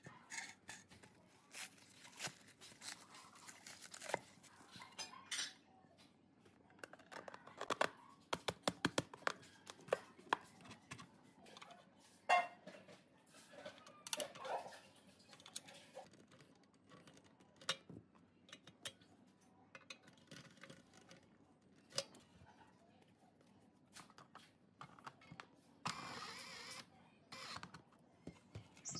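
Scattered clinks, taps and knocks of the scale's metal parts and glass dial cover being handled and fitted together, with a cluster of louder knocks in the middle. A short rasping burst comes near the end.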